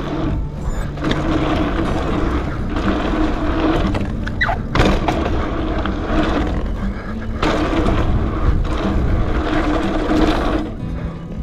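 Gravel bike rolling through a line of dirt jumps: steady tyre and wind noise, with a few sharp thuds as the bike lands, about five, seven and a half and eleven seconds in.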